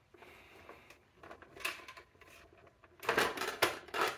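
Plastic clicks and knocks as a SodaStream CO2 cylinder is handled and seated in the back of a SodaStream Jet, with a quick cluster of clattering near the end.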